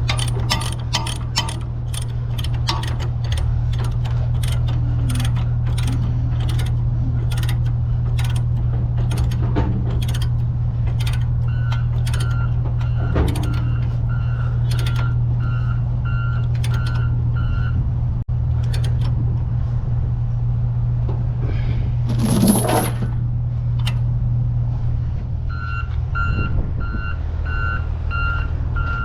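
Cat 320 excavator's diesel engine running steadily while it travels, with quick metallic clanks in the first half. Its travel alarm beeps a little over once a second, in two spells. About two-thirds of the way through there is one short burst of hiss.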